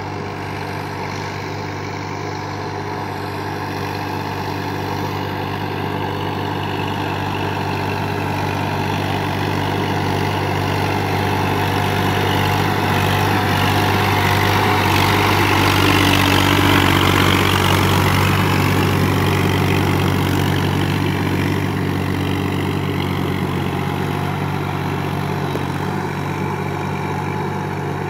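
Massey Ferguson 1035 DI tractor's three-cylinder diesel engine running steadily while it drives on cage wheels through a flooded paddy field. It grows louder as the tractor comes close about halfway through, then fades as it moves away.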